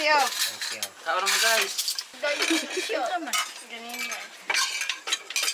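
Spoons and plates clinking and scraping as food is served and eaten at a table, with people's voices talking in between.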